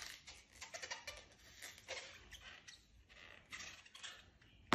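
Faint, irregular small clicks and rustles in a quiet room.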